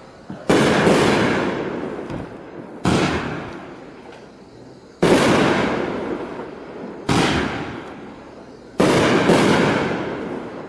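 24-shot consumer fireworks cake (Iron Man 'Singularity') firing: seven sharp bangs of shells bursting, roughly every two seconds and twice in quick pairs, each trailing off over a second or so.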